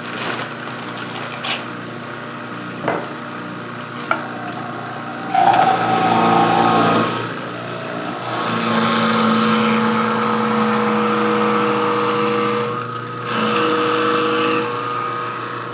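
Champion masticating juicer's electric motor running steadily while frozen banana is pressed through it with the plunger, ground into soft fruit ice cream. The grinding swells louder in spells of a few seconds as fruit is pushed in, and there are a few light knocks in the first seconds.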